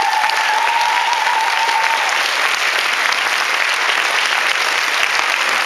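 A large audience clapping and cheering. Over the clapping, one long, high, held note rises from the crowd and dies out about two seconds in.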